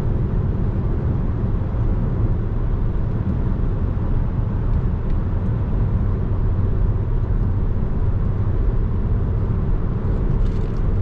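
Steady low rumble of a car driving at highway speed, heard from inside the cabin.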